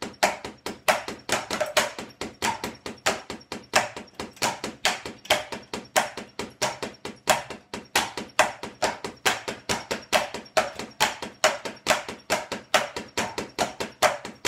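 Drumsticks striking practice-kit pads in a steady run of strokes, about four a second, some hit noticeably harder than others: flams and accented strokes with more power in one hand.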